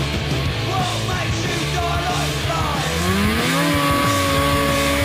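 Rock music with a steady bass line; a note slides up about three seconds in and is held.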